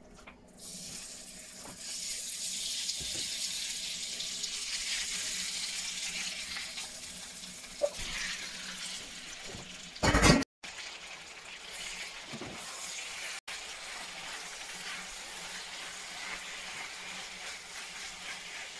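Raw beef pieces sizzling in hot olive oil in a ridged grill pan, a steady hiss that starts as the first pieces go in. A short loud noise comes about halfway.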